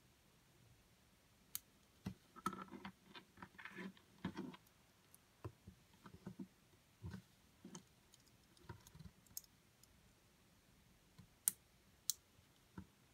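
Small plastic Lego pieces clicking as they are handled and pressed together, in quiet irregular clicks with a busy cluster a couple of seconds in and two sharp snaps near the end.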